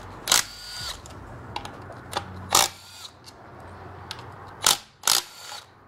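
Sharp metallic clanks of hand tools and engine parts being handled: four loud ones a second or two apart, the first two ringing briefly like struck metal, with a few lighter clicks between.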